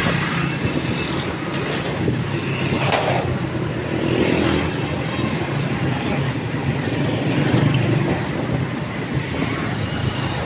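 Steady engine and road noise from a vehicle moving through city traffic, with wind and passing traffic mixed in.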